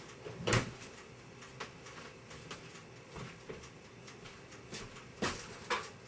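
Compact stainless-steel mini fridge door pushed shut with a thud about half a second in, followed by a few lighter knocks and clicks, two sharper ones near the end.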